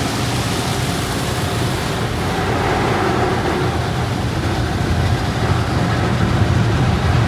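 Automatic tunnel car wash heard from inside the car's cabin: a steady rush of water and foam spraying against the windshield and body, with a low rumble underneath, growing slightly louder near the end.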